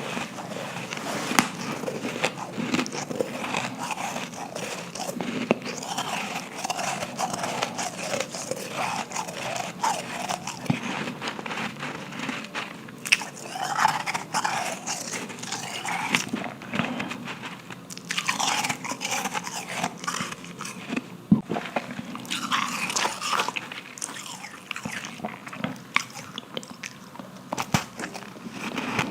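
Refrozen powdery ice being bitten and chewed close to the microphone: continuous crisp crunching and crackling, with louder crunchy bites now and then.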